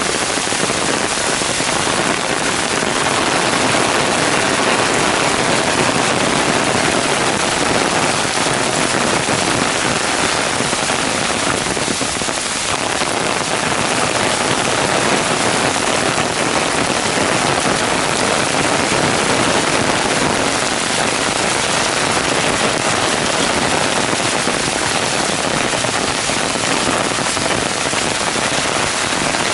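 Heavy downpour: a steady, dense hiss of rain hitting the paved path and the trees, with crackling drops on an umbrella overhead.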